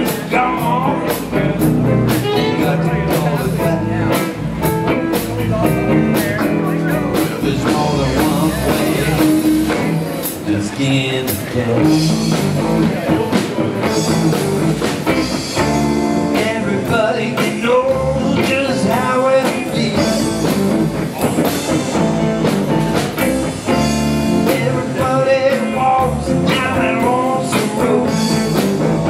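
Blues band playing live: harmonica over electric guitar, bass and a drum kit, with bending, wavering high notes.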